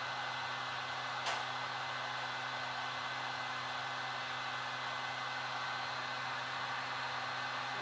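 Temperature-controlled heat gun running steadily, a fan blowing with a steady hum, heating the phone's glass to loosen its adhesive. A single sharp click about a second in.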